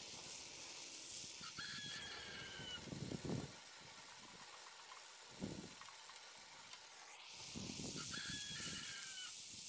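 A rooster crows twice, about one and a half seconds in and again near the end. Underneath is the steady hiss of a gas hand torch heating the radiator tank's edge, with a few short scrubs of a wire brush on the metal.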